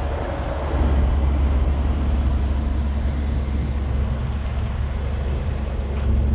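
Big-block Chevrolet V8 of a 1990 Fleetwood Bounder motorhome running steadily with a low, even exhaust rumble. The exhaust is sealed and much quieter, its leaking donut gaskets just replaced with new gaskets, springs and nuts.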